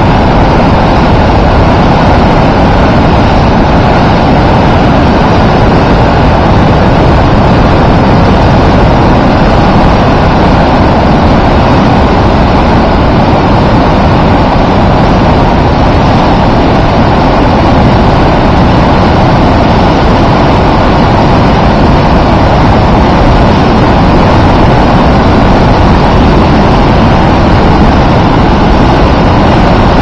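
Loud, steady rushing of high floodwater churning out of a concrete dam outlet into the channel below.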